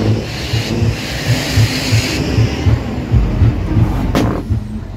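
Lowered cars rolling slowly past, with a deep uneven rumbling and booming at the bottom of the sound and a hiss over the first couple of seconds. A single sharp knock comes about four seconds in.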